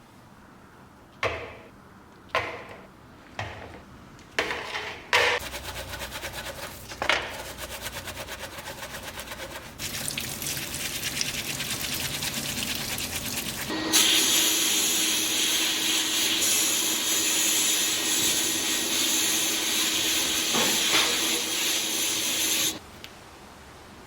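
A few separate knocks, then a fast mechanical rattle. A loud steady hiss with a faint hum follows and cuts off suddenly near the end, like a compressed-air or blasting tool in use.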